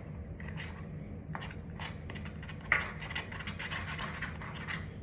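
A spoon scraping round a container, stirring a soft butter-slime mixture of glue, foam soap, lotion and paint in quick, irregular strokes, with one sharper scrape about three seconds in.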